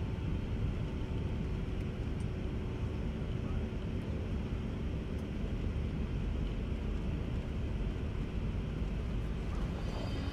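Light aircraft in flight: a steady, even drone of engine and propeller with rushing air, heaviest in the low range.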